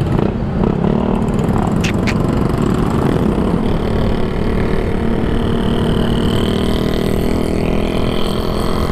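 Yamaha NMAX 155 scooter's single-cylinder engine pulling away from a stop and running along a city street, with steady road noise and other motorcycles around. Two brief sharp high sounds come about two seconds in.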